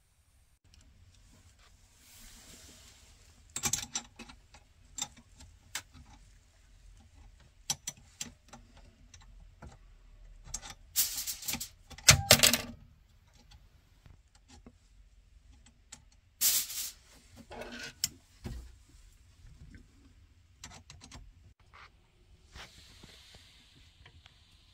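Handling noise from hands working small parts: scattered clicks and light metallic rattles, with several louder crackling rustles, the loudest about twelve seconds in.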